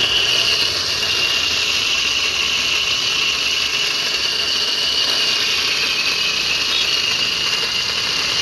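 E-rickshaw's electric drive motor running under power with a loud, steady high-pitched whine and grinding hiss. The mechanic puts the noise down to worn-out motor bearings.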